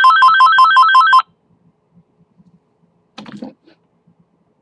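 Cordless phone handset ringing with an electronic trill, two alternating tones pulsing several times a second: an incoming call. The ring stops about a second in, and a brief bump or rustle follows a couple of seconds later.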